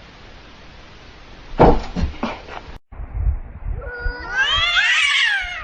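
Domestic cat giving one long, drawn-out meow in the last second and a half, its pitch rising and then falling. Earlier there are a few short, loud knocks.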